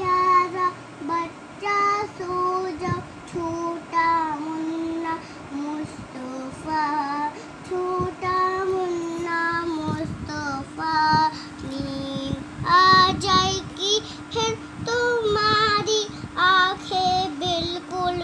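A child singing a melody in a high voice, one sung note after another.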